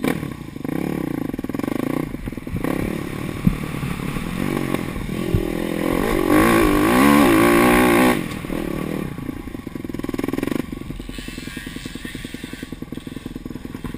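Single-cylinder engine of a 2011 Husqvarna TE 310 enduro bike, heard from the rider's helmet, comes in suddenly and pulls under throttle, rising to its loudest about six to eight seconds in. Just past ten seconds the throttle closes and it drops to a lower, evenly pulsing beat.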